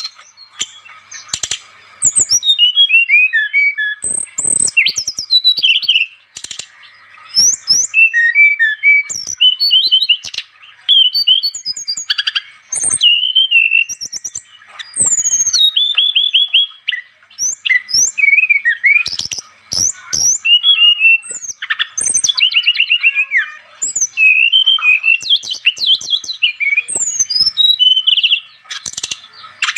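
Brown-chested jungle flycatcher (SRDC) singing continuously: a nonstop run of fast, varied whistled phrases, quick rising and falling sweeps and short rapid trills.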